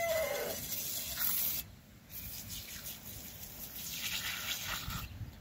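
Aerosol can of foaming degreaser spraying onto forge-blower parts, in two long hissing bursts with a short break about a second and a half in.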